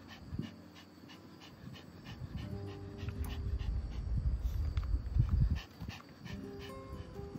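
Pomeranian panting in quick, even breaths. A low rumbling noise swells for a few seconds in the middle, and faint background music comes in near the end.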